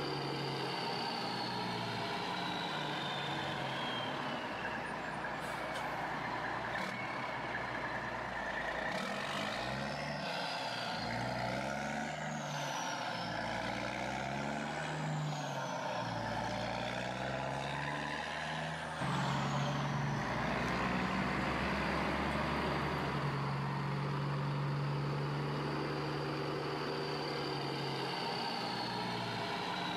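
Heavy diesel vehicle engine sound, idling steadily and revving up and down in the middle, with a falling whine near the start and again near the end. The sound changes abruptly and gets a little louder about two-thirds of the way through.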